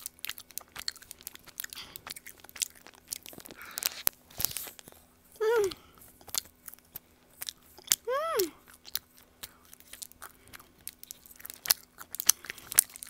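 Close-up chewing of a sticky, chewy honey-filled rice cake (baekseolgi): wet, sticky mouth clicks and smacks throughout. Two short hummed "mm" sounds come about five and eight seconds in.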